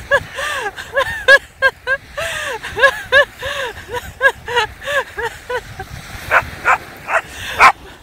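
A small dog barking in a quick, regular run of yips, about three a second, ending in a few sharper, louder barks near the end.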